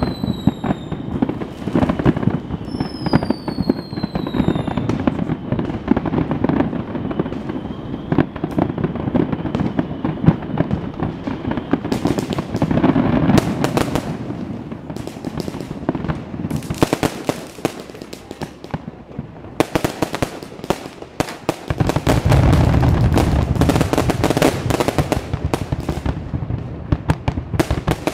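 Fireworks display: aerial shells bursting amid dense crackling and rapid pops, with two falling whistles at the start and about three seconds in. About 22 seconds in, a deep rumbling barrage of many bursts is the loudest part.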